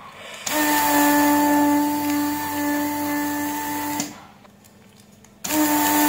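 Vacuum pump of a Weller desoldering tool running as its trigger is held, sucking molten solder from the joystick module's pins on a controller circuit board: a steady, pitched hum that starts about half a second in, stops about four seconds in, and starts again near the end.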